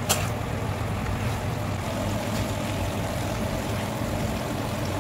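Chicken, liver and vegetable stew sizzling in a frying pan over a gas burner as a metal spoon stirs it, under a steady low hum. A sharp clink of the spoon against the pan comes just at the start, with a few fainter scrapes later.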